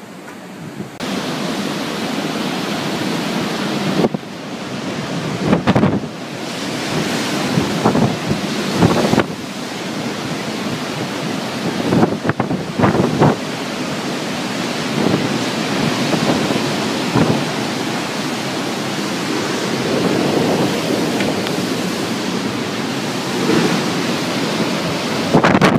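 Hurricane wind blowing hard with rushing water, a steady loud noise; gusts hit the microphone in sudden thumps several times.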